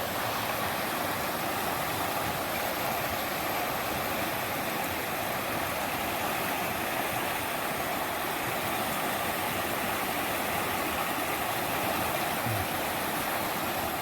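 Quinapoxet River running high after heavy rain: a steady rush of flowing water.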